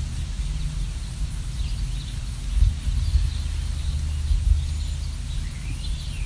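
Songbirds chirping in short, scattered calls, one rising call near the end, over a steady, uneven low rumble.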